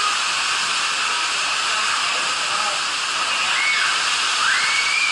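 Steady rush of water running through a tube waterslide's launch channel and into the tunnel, with voices calling faintly in the background.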